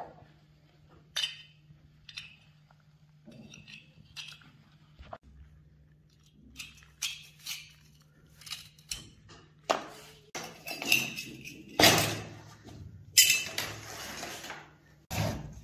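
Steel parts of a Tokarev TT-33 pistol magazine clinking and clattering against a wooden table while it is taken apart with pliers. It starts with scattered light clicks, then turns into denser clatter with two louder knocks in the second half.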